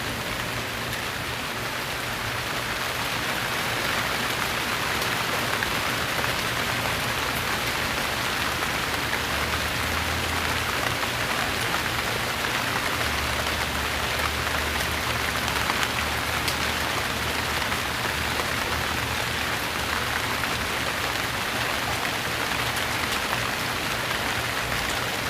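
Steady rain falling at night, an even hiss of raindrops on a surface with faint scattered drip ticks.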